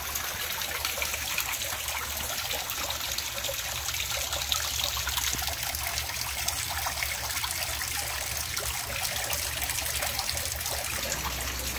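Water of a small waterfall fountain trickling and splashing steadily as it spills over a slate shelf into the pool below, with a low steady hum underneath.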